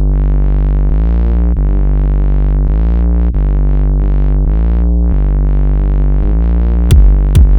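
Electronic synth-pop intro: a synthesizer bass drone with its tone repeatedly swept up and down. Drum-machine hits come in near the end.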